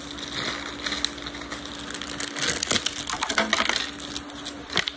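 Irregular light clicks and knocks of small hard objects on a tabletop, over a steady faint hum.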